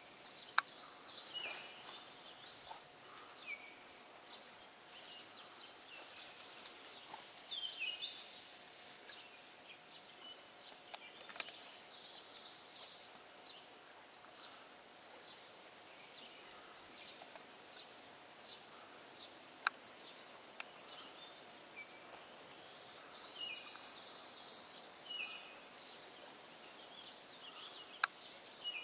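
Quiet streamside ambience: songbirds chirping and twittering on and off, with short downward-sliding chirps and bursts of higher twittering. A faint steady tone sits under it, and a few sharp clicks come through.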